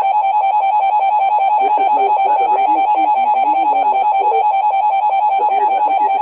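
Emergency Alert System two-tone attention signal: a steady, unbroken alarm tone held at an even level, with faint music underneath.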